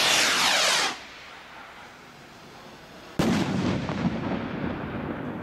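Atom Bomb firework rocket whooshing as it climbs, its hiss falling in pitch before cutting off about a second in. A little over three seconds in comes the loud, sharp bang of its flash-powder burst, followed by a rolling echo with small crackles.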